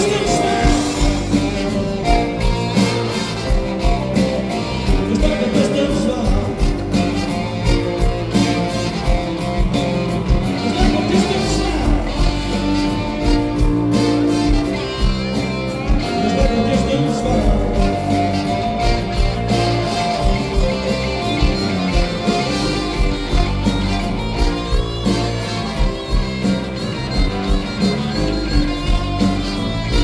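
Live blues-rock band playing, with a man singing over electric guitar, bass, drums, keyboard and a horn section of saxophone, trumpet and trombone, with a steady beat.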